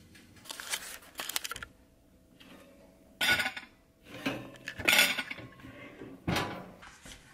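Clinks and knocks of metal and dishes as a countertop toaster oven's door and rack are handled and a plate and fork are moved about. The sound comes in several short clattering bursts, the loudest about three and five seconds in.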